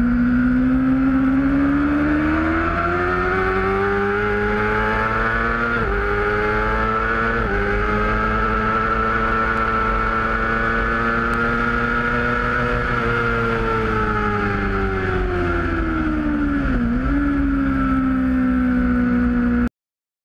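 Onboard sound of a Kawasaki ZX-6R race bike's inline-four engine at the track, revs climbing hard out of a corner with two quick upshifts about six and seven and a half seconds in, then held high down the straight before winding down as it slows for the next turn. Steady wind rush over the camera underneath. The sound cuts off suddenly just before the end.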